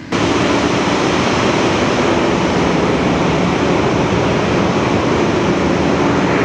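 Loud, steady noise of a ship's engine-room machinery running, a dense din with a low steady hum under it. It comes in suddenly near the start, on stepping out of the quieter control room into the engine room.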